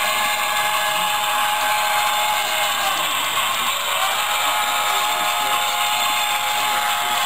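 HO scale model train running on the layout: the locomotive's small electric motor gives a steady whine over the hiss of wheels on rail, its pitch dipping and rising briefly around the middle.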